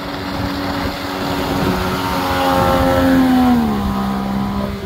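Jet-drive outboard motor running at planing speed, pushing a RIB loaded to about 600 kg, with wind and water rushing past. The engine note drops noticeably about three and a half seconds in.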